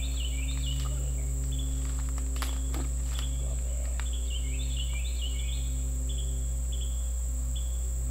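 Insect chorus: a steady high-pitched buzzing with runs of short repeated chirps, over a steady low hum. A few faint clicks come about two and a half to three seconds in.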